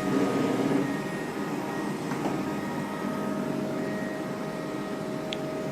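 iClebo Omega robot vacuum running steadily on a long-pile carpet: a steady suction-fan and brush hum with a few faint steady tones. A short click comes about five seconds in.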